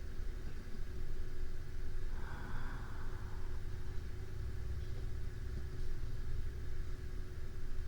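A sleeping person's slow, soft breathing, recorded close to a binaural microphone: one breath about two seconds in, over a steady low rumble and a faint hum.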